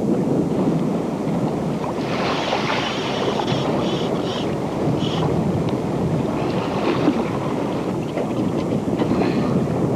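Wind buffeting the microphone, with water washing and splashing against the boat's hull. The splashing sounds brighter for a few seconds about two seconds in.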